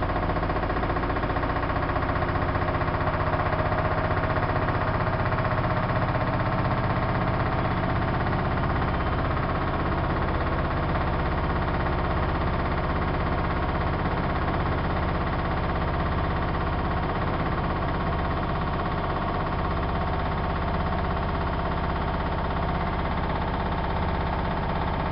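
Siemens iQ WIQ1430 front-loading washing machine spinning its drum: a steady motor whine over a deep drum hum, continuous with no pauses.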